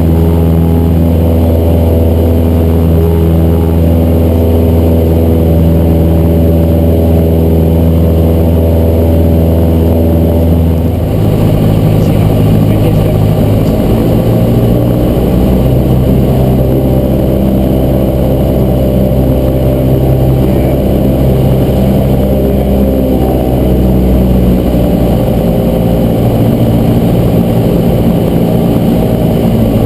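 Cessna 172's piston engine and propeller droning steadily in flight. About eleven seconds in, the drone's pitch changes abruptly and then holds steady again.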